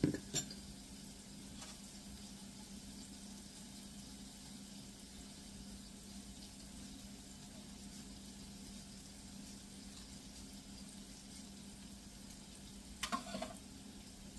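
Steady low hum and faint hiss of room tone, with a sharp knock at the start and a few light knocks about thirteen seconds in.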